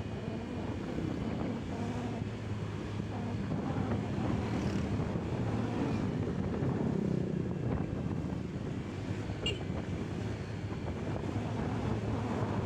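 Steady low drone of a car's engine and road noise heard from inside a moving vehicle, with wind buffeting the microphone. A short high chirp sounds about nine and a half seconds in.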